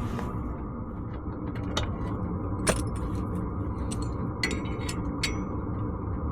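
Several light metallic clinks, about five scattered through the stretch, from metal tools and fittings being handled, over a steady low hum.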